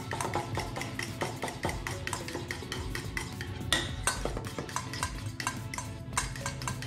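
A whisk stirring a thick sauce in a small stainless steel bowl, ticking and scraping against the metal in quick, uneven strokes.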